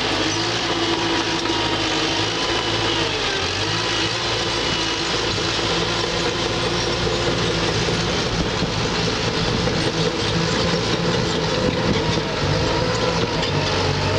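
Bulldozer's diesel engine running steadily under load as the machine travels on its tracks.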